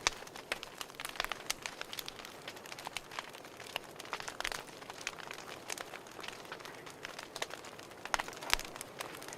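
Fireplace crackling: irregular snaps and pops over a soft steady hiss, with a few louder pops at the start and near the end.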